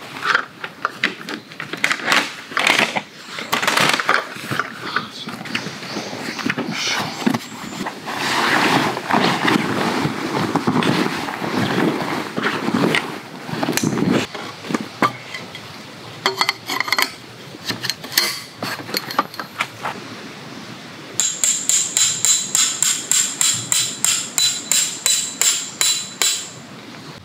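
Canvas tarp rustling and flapping as it is handled and spread out, then from about 21 s in a rapid run of hammer blows on a metal tent peg, about four a second, each strike ringing metallically, a ring likened to the call of a higurashi cicada.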